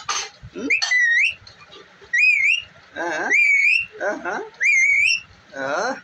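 Indian ringneck parakeet whistling: about four short rising, wavering whistles, alternating with quick chattering calls that drop in pitch.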